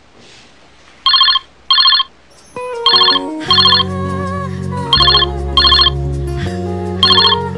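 Mobile phone ringing with a ringtone: two short, loud electronic ring bursts about a second in, then a melody with a bass line joins, and the paired rings repeat over it about every two seconds.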